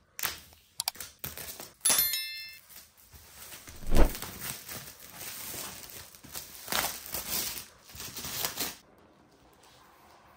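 Laptop box packaging being torn open and handled: a few clicks, a loud thump about four seconds in, then rustling and tearing that stops about nine seconds in.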